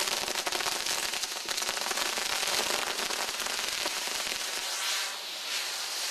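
Castillo fireworks tower burning: a dense, continuous crackle of many small firecrackers and sparking lances, with a steady hiss. The crackle eases briefly about five seconds in.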